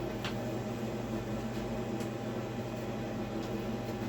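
Steady low electrical or mechanical hum of room background, with two faint light clicks, one just after the start and one about two seconds in.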